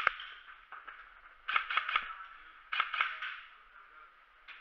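Airsoft guns firing in short bursts: sharp snaps, two right at the start, a quick run of about four about one and a half seconds in, another run about three seconds in, and a single snap near the end.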